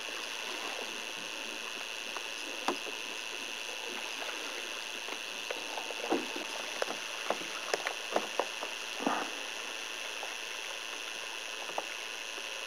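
Scattered splashes and knocks of water and canoe hull as people wade in shallows and tip a swamped canoe to empty it, over a steady hiss. The knocks bunch together around the middle, with one longer splash a little after that.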